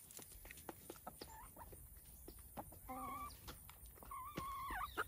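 Hens pecking feed pellets from a pan, a run of small quick clicks, with two hen calls: a short one about three seconds in and a longer one about four seconds in that rises at its end.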